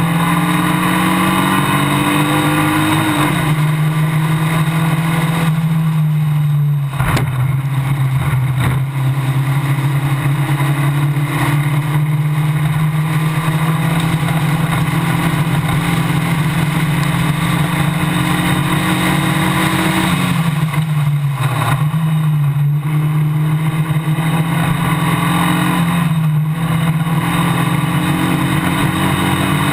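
Formula Basic single-seater racing car's engine running hard under load, heard onboard from behind the driver, with wind hiss over it. The engine note dips briefly about three seconds in and again around twenty and twenty-six seconds in, as the car comes off the throttle for corners, and there is one short sharp knock about seven seconds in.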